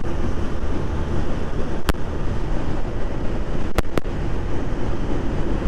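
Wind rushing over the microphone with the steady road and engine noise of a motorcycle on the move. There are three sharp clicks, one about two seconds in and a close pair near four seconds.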